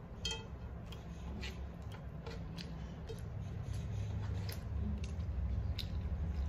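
Eating by hand: scattered wet mouth clicks and smacks from chewing rice and curry, with fingers working food on a steel plate. A low rumble underneath swells toward the end.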